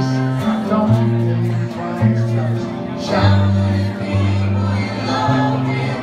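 A live acoustic band playing a song, with strummed acoustic guitar, a line of low held notes that change about every second, and a group of people singing along.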